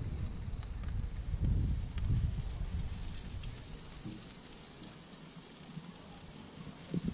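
Lamb chops sizzling and charcoal crackling faintly in an open kamado grill, with the fat crisping over the coals. Gusts of wind rumble on the microphone through the first half and then ease off.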